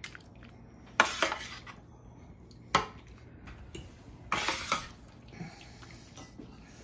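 Metal serving utensil scraping and clinking against a metal casserole pan while scooping baked ziti out, in three separate clatters: about a second in, near the middle, and a longer cluster a little later.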